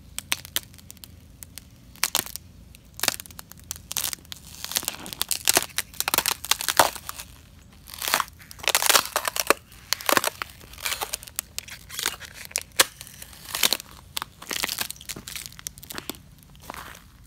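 Boots stepping on thin sheets of ice over grass, the ice cracking and crunching underfoot in irregular clusters of sharp crackles with each step.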